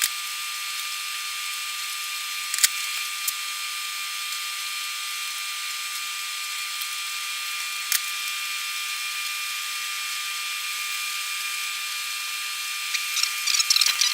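Steady hiss with a thin high whine running through it, broken by single sharp clicks about two and a half, three and eight seconds in. Near the end comes a run of light clicks and rattles.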